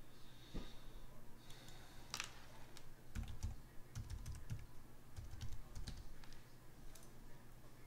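Typing on a computer keyboard: a run of light, irregular key clicks, with a few dull low thumps in the middle.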